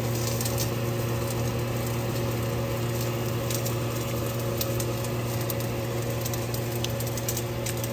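A steady low machine hum with a few fixed tones, overlaid by light scattered clicks and scrapes of a utensil cutting into and picking up food.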